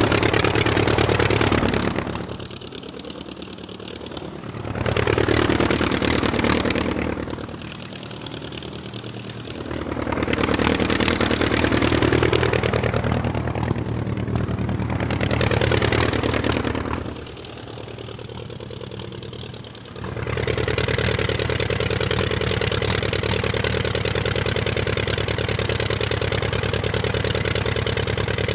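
Aircraft engine running and being throttled: three times it drops back to a lower, quieter run and then rises again, with the pitch falling and climbing. It then holds a steady high power setting through the last third.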